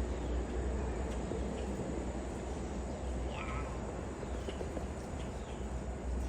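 A flock of blackbirds calling, with a few short, scattered calls and one clearer harsh call about three and a half seconds in, over a steady low rumble.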